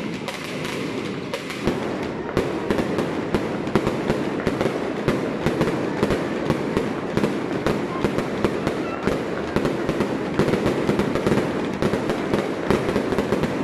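A long barrage of firecrackers going off in quick, uneven succession, a dense crackle of bangs that thickens about two seconds in.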